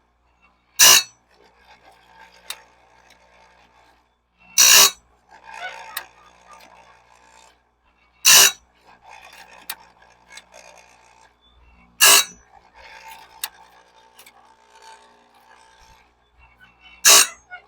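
Electric chainsaw sharpener's grinding wheel grinding bandsaw blade teeth: five short, loud grinding bursts spaced about every four seconds, one per tooth, with quieter scraping and rubbing between them.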